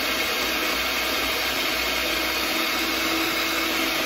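Sunbeam stand mixer running at its lowest speed, its beaters whisking raw eggs in a stainless steel bowl: a steady motor whir, with a faint steady tone joining about halfway through.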